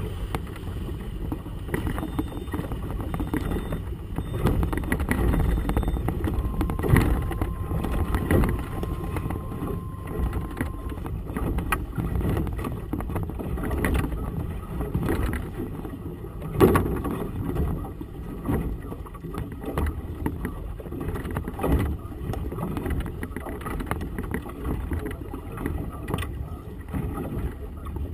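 Wind buffeting the microphone of a camera on a boat in choppy water, a steady low rumble with irregular knocks of waves slapping the hull; the loudest knock comes a little past halfway.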